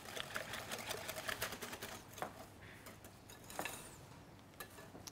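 Wire balloon whisk beating a runny egg and cream mixture in a glass bowl: rapid clicking and scraping of the wires against the glass, thinning out after about two seconds.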